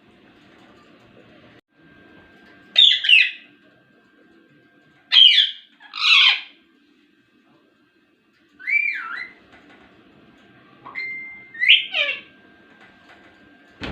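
Ringneck parrot squawking and chirping: a handful of short, loud calls spaced a couple of seconds apart, one of them a rising-then-falling whistle-like call.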